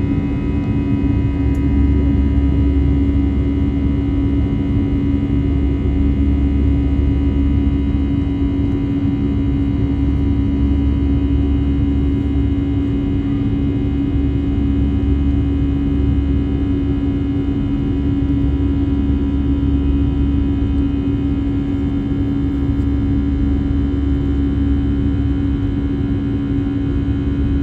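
Steady cabin drone of an Airbus A320-family airliner climbing after takeoff: a low rumble under one strong steady hum and several fainter steady whines from the jet engines.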